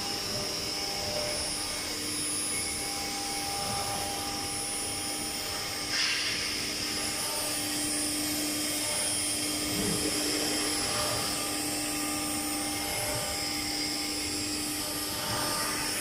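ATC CNC router running a job: the spindle whines steadily over a mechanical hiss, and a brighter, louder hiss comes in sharply about six seconds in, as the tool works.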